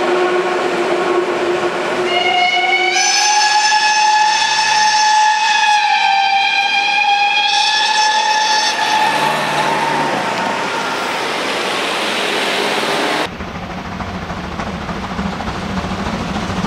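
Steam locomotive whistle blowing one long blast, rising in pitch as it opens about two seconds in and cutting off about nine seconds in, over the hiss of steam. Near the end the sound changes abruptly to the low rumble of a steam locomotive some way off.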